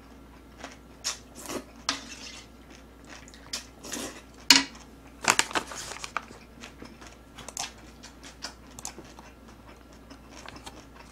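A person chewing with mouth full close to the microphone, wet smacks and clicks at irregular intervals, with an occasional clink of a metal spoon against a stainless steel pan of soup.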